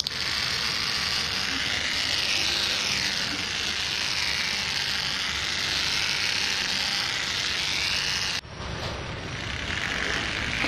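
Small DC electric motor of a homemade cardboard model car running at speed: a steady high whir with a wavering pitch that drops away sharply near the end.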